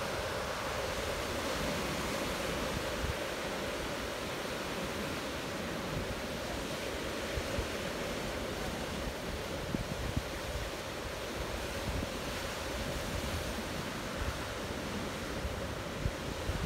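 Sea surf washing steadily, with wind gusting on the microphone.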